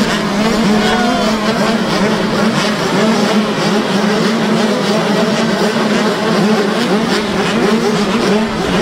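A pack of small youth motocross bikes at the starting gate, their engines running together as a dense, steady buzz, with throttles blipped up and down unevenly.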